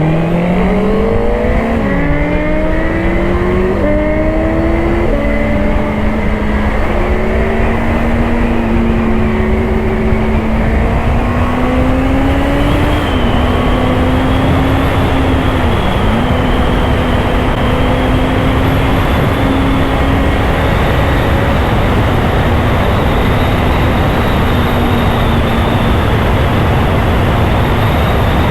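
Honda CBR650R's inline-four engine accelerating, its pitch climbing and dropping back at several gear changes, then holding a steady note as the bike cruises.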